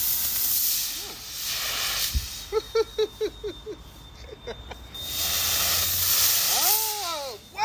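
Propane-fired Burgess insect fogger, loaded with mineral oil, puffing out fog with a loud hiss in several spurts. A quick run of short pitched chirps comes in the middle, and a couple of falling pitched calls come near the end.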